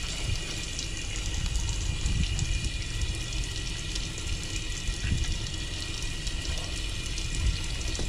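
Water running steadily from a tap onto a wet metal fish-cleaning table.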